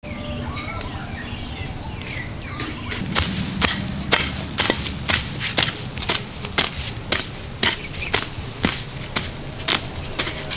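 Steady chopping with a knife on a cutting board, about two strokes a second, starting about three seconds in. Before it, birds chirp faintly.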